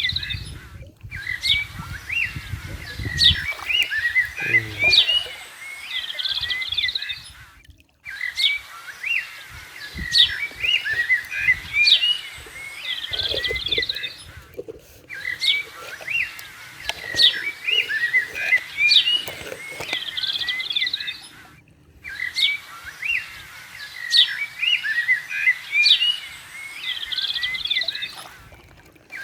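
Birds chirping and calling, many short calls overlapping, in a pattern that repeats about every seven seconds with a brief silent break between repeats, like a looped recording of birdsong.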